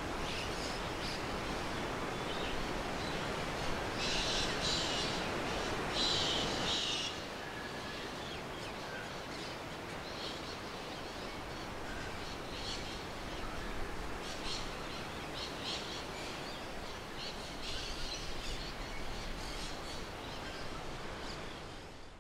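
Bushland ambience: birds calling in short high snatches over a steady rushing background, busiest about four to seven seconds in. The whole bed fades out at the end.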